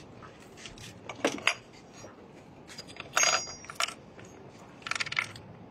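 A few light metallic clinks and clicks from small metal objects being handled. One clink, about three seconds in, rings briefly, and a quick cluster of clicks comes near the end.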